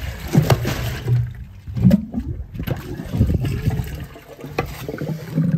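Plunger worked up and down in a water-filled drain gully, several strokes surging water through a gully trap blocked with kitchen grease. The blockage clears and the water drains away.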